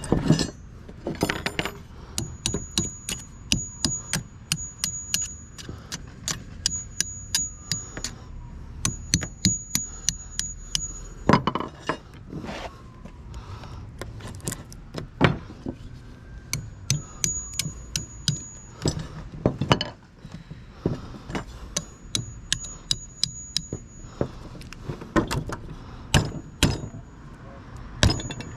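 Hammer blows on the metal of an electric motor being knocked apart for scrap: runs of sharp strikes, about two to three a second, with a thin high metallic ring and a few heavier blows between the runs.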